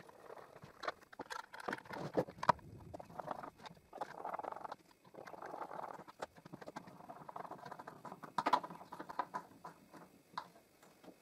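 Small screws being driven by hand with a screwdriver through brass hinge leaves into a wooden box: short stretches of scraping and creaking as each screw turns, broken by small clicks and knocks.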